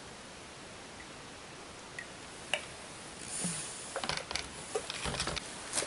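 Light clicks and small rattles of a wire hook and a plastic bucket being handled. A couple of isolated clicks come first, then a busier run of them through the second half.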